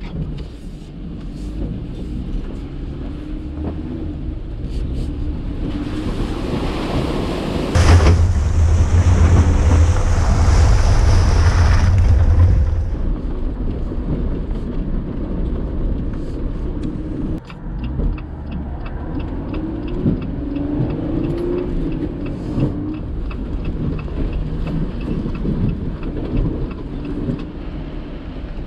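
Jeep Gladiator Mojave pickup driving, a steady low rumble of engine and road noise. About eight seconds in it swells into a louder rush that lasts some five seconds, then settles back.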